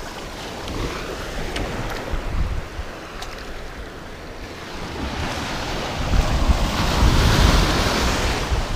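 Ocean surf breaking and washing up the beach, with wind buffeting the microphone; the wash swells louder about six seconds in.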